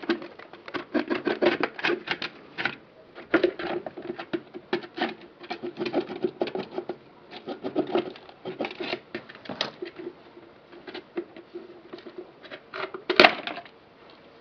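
A blade chopping and tapping rapidly at a dried calabash gourd, many quick irregular knocks, until the gourd splits open with one loud crack near the end.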